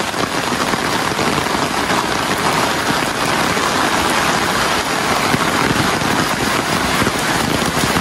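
Heavy rain falling, a dense steady patter of drops.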